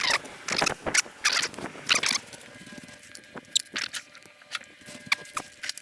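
Hands working on the engine: a run of irregular clicks and short scrapes of tools and parts being handled, thick for the first two seconds and then sparser.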